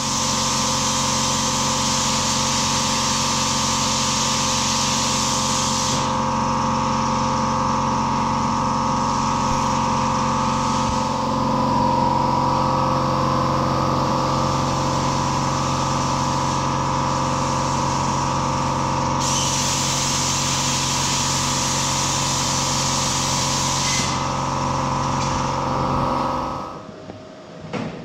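Angle grinder running on steel plate. A steady motor whine carries a harsh grinding hiss in two spells, one at the start and one about two-thirds of the way through. The grinder shuts off near the end.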